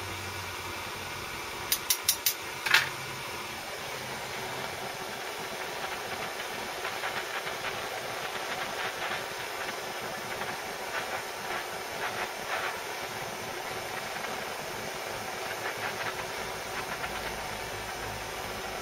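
Butane blowtorch flame hissing steadily as it heats a fishing lead weight for plastic powder coating. About two seconds in there are four quick sharp metal taps, then one more.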